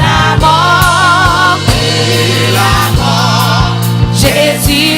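Church worship singing: voices sing a French gospel hymn with vibrato on held notes, over band accompaniment with a steady beat and bass.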